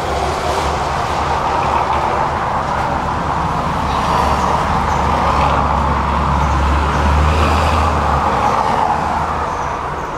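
Tram running along the track: a steady low hum under rolling wheel-on-rail noise, growing louder over several seconds and easing off near the end.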